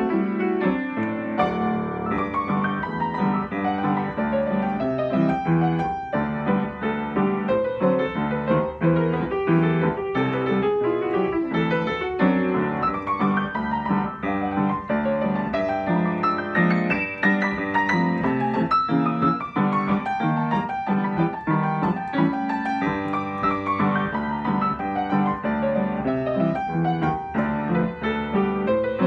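Upright acoustic piano playing a syncopated ragtime piece, with a busy stream of notes over steady chords and no pauses.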